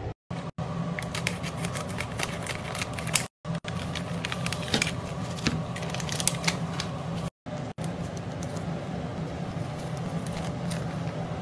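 Paper and plastic wrapping crinkling and rustling in quick clicks as a pack of round pastry dough sheets is opened and handled, over a steady low hum. The sound cuts out briefly a few times.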